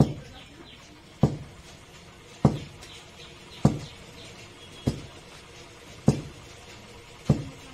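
A long wooden pestle pounding rice in a wooden mortar to make flour: a dull thud about every 1.2 seconds, seven strikes in a steady rhythm.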